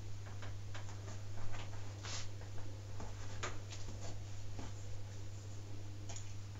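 Scissors snipping through the fine Swiss lace at the front of a lace front wig: scattered small snips and clicks at an uneven pace, with a steady low hum underneath.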